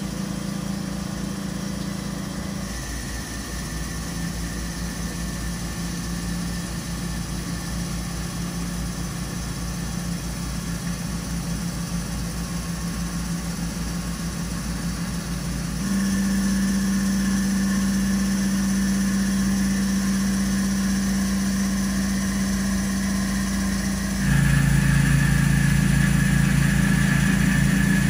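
A Tormach 1.5 HP CNC mill running a Kennametal HARVI III six-flute end mill through Inconel 718 under spraying flood coolant: a steady machining hum with held tones. It gets louder in a step about halfway through and again near the end, where a lower tone joins. The cut is holding up and goes on successfully for over twenty minutes.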